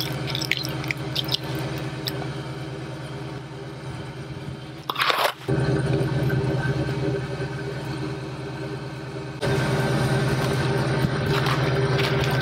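Vehicle engine idling with a steady hum, with scattered small clicks at first and a short burst of noise about five seconds in; the hum gets louder about nine seconds in.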